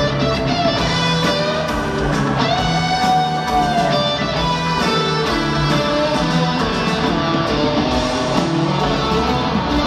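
Live rock band playing in an arena, with a lead guitar line over the band; a long bent guitar note rings out about three seconds in.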